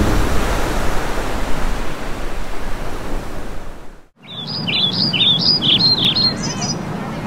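A steady rush of sea and surf noise fades out about four seconds in. Birds then chirp in quick, repeated phrases over a low outdoor background.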